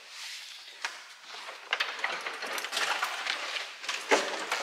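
An Opel Kadett GSI's plastic dashboard scraping, rustling and knocking against the car's body as it is worked loose and lifted out, with sharp clicks. Quiet at first, it grows louder after about a second and a half, with a loud knock near the end.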